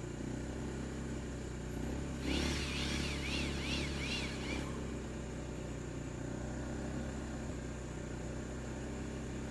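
A small engine running steadily with a low hum. About two and a half seconds in, a high warbling whistle rises and falls several times for about two seconds.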